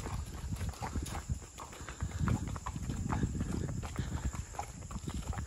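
Hooves of two horses clip-clopping on an asphalt road at a walk, in an uneven run of clicks several times a second.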